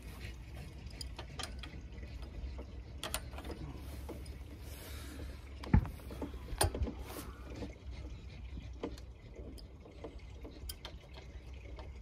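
Scattered metal clicks and knocks from working the swing's bolts and frame, with one sharp knock about six seconds in.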